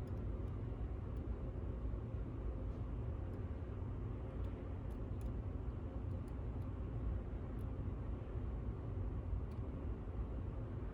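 Faint, scattered metal ticks of a lock pick working the pins of a U-Shin Showa NX lock, over a steady low rumble.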